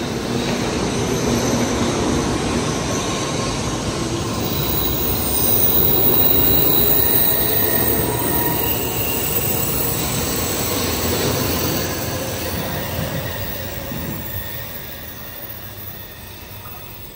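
Shinkansen Nozomi bullet train pulling out of the station past the platform. Its running noise swells for the first several seconds, then fades as the last cars move away.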